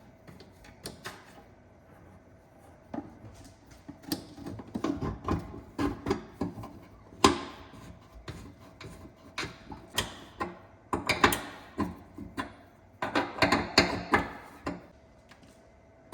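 Hand tools working a metal fuel-line fitting: irregular clicks, taps and scrapes of metal on metal, coming in clusters, with one sharper click about seven seconds in.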